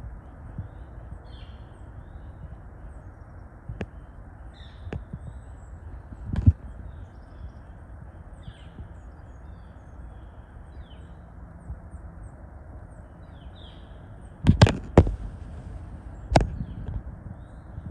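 Outdoor woodland ambience: a steady low rushing noise with faint, scattered bird chirps, broken by a few sharp knocks or snaps. The loudest is a quick cluster of knocks near the end.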